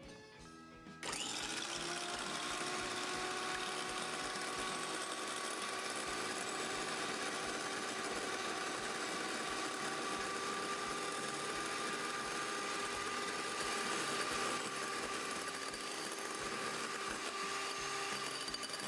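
Electric hand mixer switched on about a second in and running steadily, its wire beaters whipping egg whites into foam in a glass bowl. A steady motor whine over the whir of the beaters, its pitch rising slightly just after it starts.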